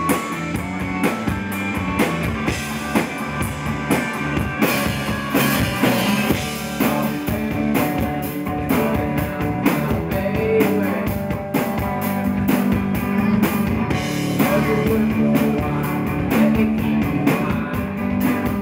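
Rock band playing live: electric guitar, bass guitar and a drum kit keeping a steady beat, with a singer's voice in places.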